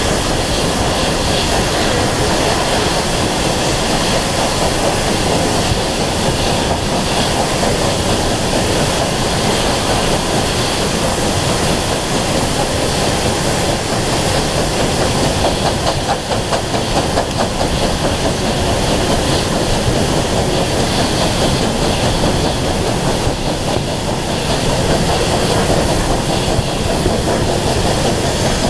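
Steam-hauled train on the move, double-headed by Bulleid West Country Pacific 34092 "Wells" and a USA S160 2-8-0: a steady, loud running noise of the train throughout.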